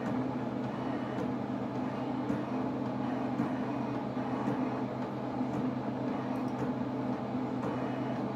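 HP 7550A pen plotter running a demo plot: a steady whirring hum from its drive motors as the pen carriage and paper move, with faint scattered ticks.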